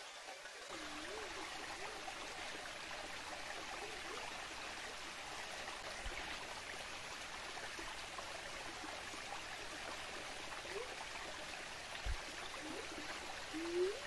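Small waterfall splashing into a shallow rocky pool: a steady rush of falling water. A few short low sliding tones come and go over it, the loudest near the end, and there is a soft thump about twelve seconds in.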